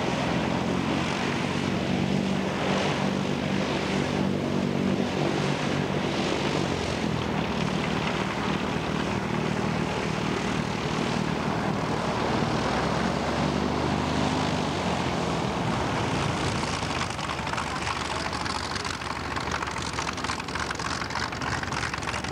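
Hawker Sea Fury's radial piston engine running steadily on the ground with the propeller turning, heard close up. Its deep running note thins out over the last few seconds.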